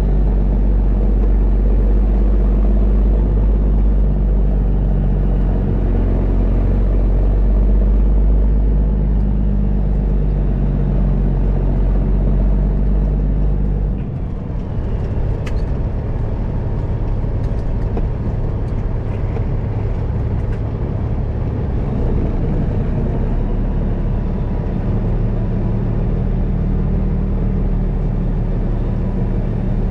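Semi truck cab interior while driving: the 2002 Peterbilt 387's diesel engine drones steadily with road noise. About halfway through, the engine note changes and the deepest rumble drops away.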